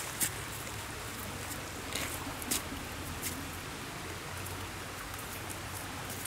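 Small stream running steadily, with a few sharp clicks and knocks from bamboo poles being handled; the loudest click comes just after the start.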